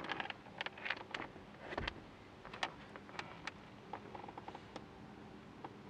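Faint scattered clicks and light knocks of a plastic car blower motor assembly being handled and offered up into its housing, with a quick little run of ticks about four seconds in.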